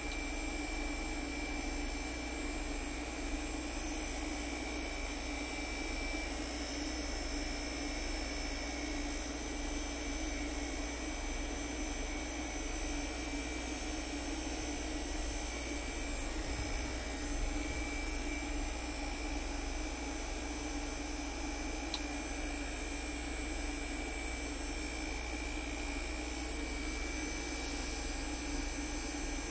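Cruise N Comfort 12-volt air conditioner running with a steady whirring hum and a faint high whine while refrigerant is charged into it from a can.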